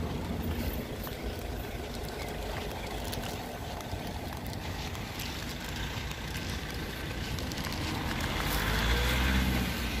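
Car engine and road noise heard from inside a moving car, a steady rumble that gets louder near the end.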